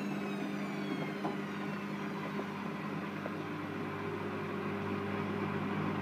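Hotpoint WML560 washing machine in its spin cycle: the motor's whine falls steadily in pitch over the first few seconds as the drum slows, over a steady low hum.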